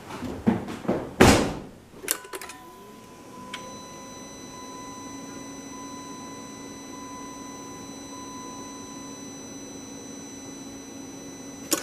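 A few knocks and a loud clunk, then an electric fuel pump starts up and runs with a steady hum and high whine for about ten seconds, stopping with a click near the end. It is the pump cycling on to prime the diesel fuel system of a Jeep Grand Cherokee CRD after a fuel filter change.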